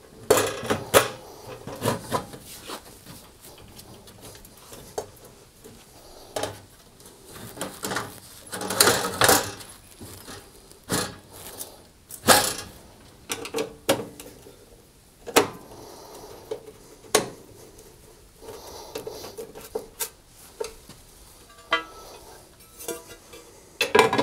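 Metal top panels of a Rangemaster 110 range cooker being lowered, shifted and seated into place by hand: irregular clunks, knocks and rattles of metal on metal, with a busier run of knocks about a third of the way in.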